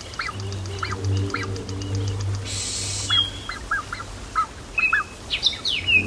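Wetland soundscape: a series of short bird calls and whistles, with a run of sharper sweeping calls near the end, over a fast, regular high ticking and a low steady hum. A short burst of hiss comes about halfway through.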